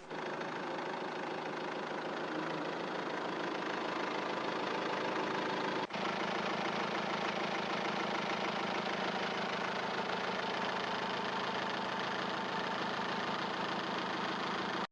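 Diesel engine with 255,000 km on it running steadily, with a brief break about six seconds in. It makes almost none of the usual diesel clatter, which the owner credits to complete combustion of fuel treated with C99 Diesel additive.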